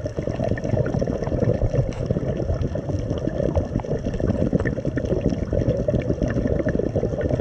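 Muffled underwater noise heard through a camera's waterproof housing: a steady low rush of water with many faint scattered clicks.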